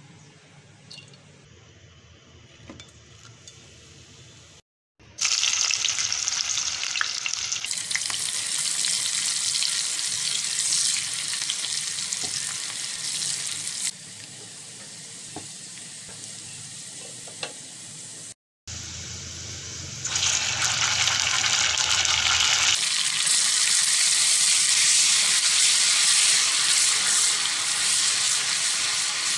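Sliced onions sizzling in hot oil in a steel pot, stirred with a wooden spoon. The sizzle starts suddenly about five seconds in, drops lower for a few seconds in the middle, then comes back loud.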